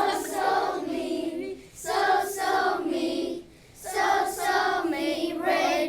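A group of young children singing together in unison, in sung phrases broken by two short pauses.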